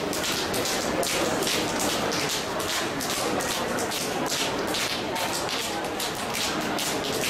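Open hands slapping a man's bare knees in Paida slapping therapy, two people slapping at once: a steady run of sharp smacks, several a second.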